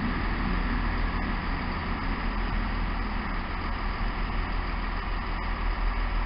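CrossCountry Class 221 Super Voyager diesel multiple unit pulling away, its underfloor diesel engines running steadily. The deeper rumble eases off early on as the train draws away.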